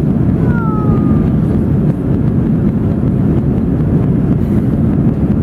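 Steady cabin noise of an Airbus A320 climbing out after takeoff, heard inside the cabin: the low rumble of the engines at climb power mixed with rushing airflow.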